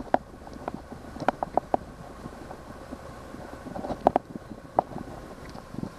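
Small four-stroke outboard kicker, a Honda 8 hp, running steadily while the boat cruises, with wind over the microphone. Irregular sharp knocks sound on the boat, several close together about a second in and a pair about four seconds in.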